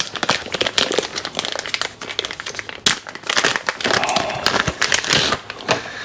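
Packaging being crinkled and rustled by hand as the printer's packed parts are unwrapped: a steady run of irregular crackling and crumpling.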